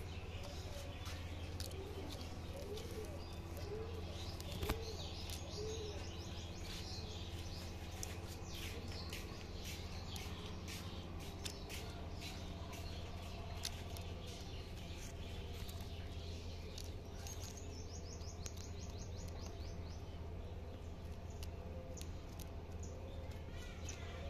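Birds chirping: many short high tweets throughout, with a few short low notes in the first few seconds, over a steady low hum. One sharp click about five seconds in.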